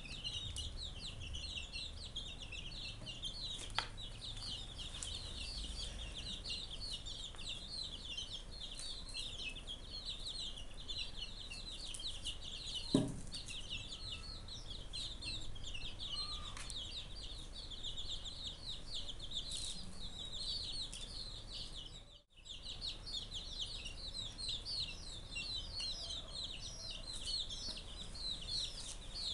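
A flock of young chicks peeping continuously, many high-pitched peeps overlapping as they feed. A single sharp knock sounds about halfway through.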